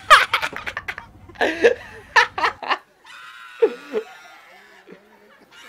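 A young man laughing hard into a close microphone, a quick run of short breathy ha-ha pulses, then a second bout about a second and a half in. The laughter stops about three seconds in.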